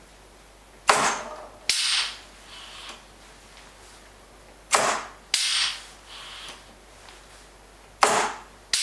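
A 32 mm-bore pneumatic cylinder stroking out and back under compressed air, three times. Each cycle is a pair of sharp cracks about three quarters of a second apart, each followed by a short hiss of air.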